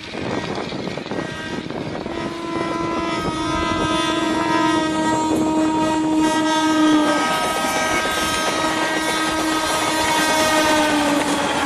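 Train horn sounding one long steady note, starting about two seconds in, dropping slightly in pitch about halfway and fading near the end, over the running noise of a moving train.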